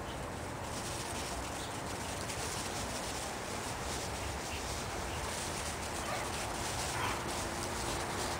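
A dog giving a few faint, short whimpers a little past halfway, over a steady background hiss.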